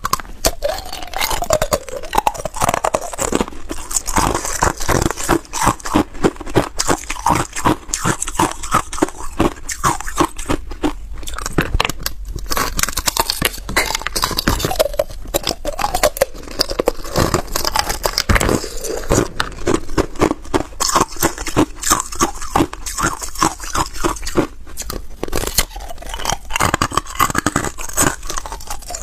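Hard, clear ice cubes being bitten off a frozen block and crunched between the teeth: a rapid, unbroken run of sharp cracks and crunches, several a second.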